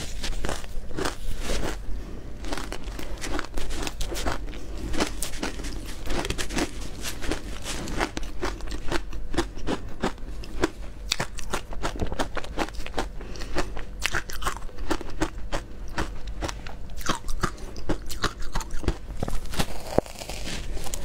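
Close-miked biting and chewing of frozen matcha-coated shaved-ice balls: continuous crunching and crackling of ice between the teeth, with many sharp cracks as pieces are bitten off.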